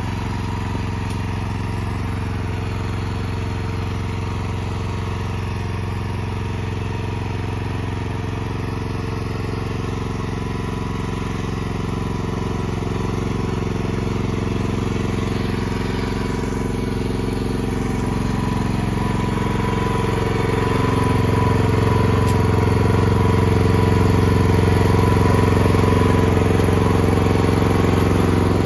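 Engine of a WADO SX1392 tracked walk-behind snowblower running steadily as the machine crawls along a cleared path. It grows louder over the last third.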